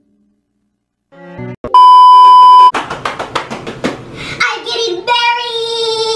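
A loud steady electronic beep about a second long, followed by a quick run of sharp clicks and then a long, high, held voice-like note.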